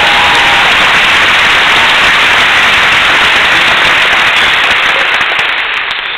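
A large crowd applauding loudly, with hands clapping right beside the microphone. The applause dies down near the end.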